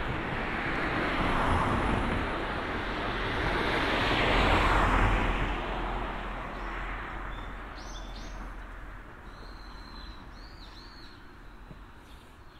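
Road vehicles passing by, their tyre and road noise swelling to a peak about four to five seconds in and then fading away. A few short bird chirps come in the second half.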